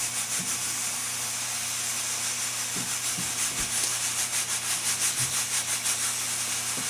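Mirro-Matic 16 pressure cooker at full pressure, steam hissing out of its pressure regulator with a rapid, even pulsing, over a low steady hum.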